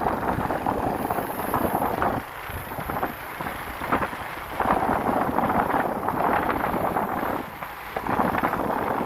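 Moving vehicle running on the road, with wind gusting over the microphone in uneven surges.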